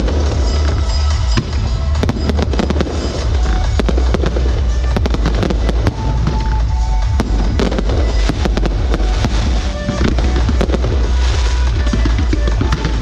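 Aerial fireworks display: shells bursting overhead in a dense, continuous run of bangs and crackling stars, with no break.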